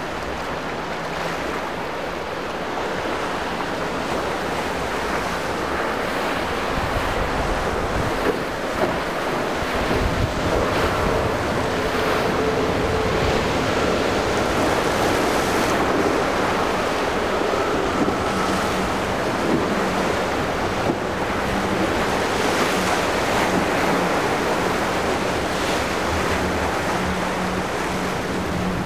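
Surf and rushing sea water with wind buffeting the microphone, over the faint steady drone of a center-console boat's twin outboard motors.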